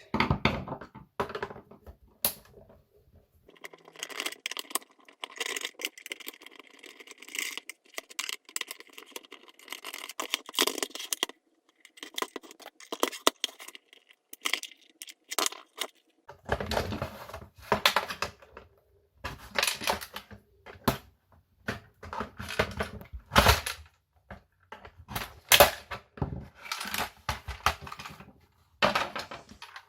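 Plastic housing of an Alcatel-made Optus OneTouch 250 landline telephone being taken apart by hand: irregular clicks, scraping and rattling of plastic parts and tools. The handling comes in bursts, with separate knocks and thuds in the second half.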